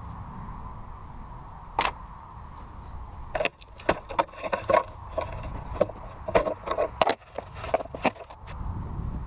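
Metal hand tools clinking and knocking on a small engine while its spark plugs are changed. One sharp click comes about two seconds in, then a quick, irregular run of clinks and knocks, each with a brief ring.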